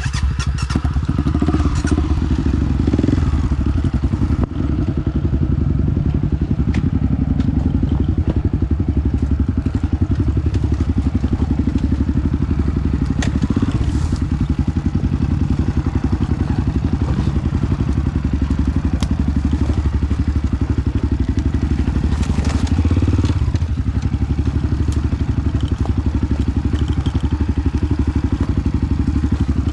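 Honda CRF250F single-cylinder four-stroke trail bike engine running steadily while riding, with occasional knocks and clatter from the bike over rough ground.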